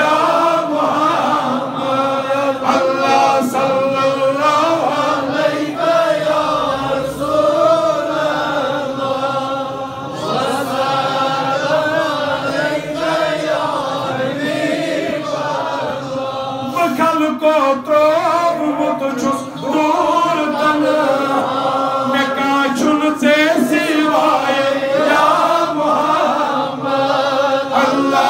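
Men's voices chanting a melodic devotional chant together, with long held notes that rise and fall, carried through the pulpit microphones.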